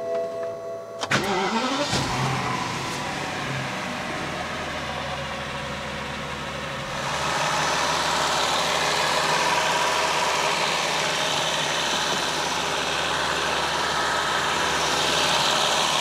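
BMW 760Li's V12 engine is started, catching about a second in and settling into a steady idle, louder from about seven seconds in. It idles with no high-pitched squeal, now that the original BMW crankcase breather valves are back in place of the aftermarket ones that caused a vacuum leak.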